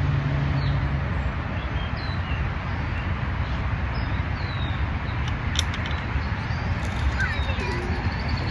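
A steady low rumble with small birds chirping briefly now and then.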